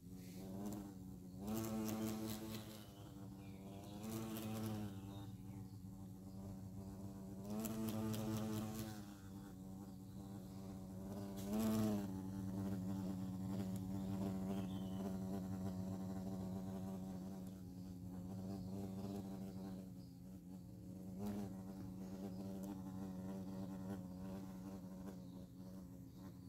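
A large hornet buzzing in flight close to the microphone: a steady low hum whose pitch briefly rises and falls several times as it swoops nearer, loudest about halfway through.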